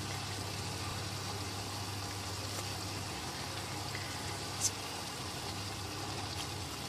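Chicken and ginger stir-fry sizzling steadily in the pan as it is stirred, over a constant low hum. One light click a little past halfway.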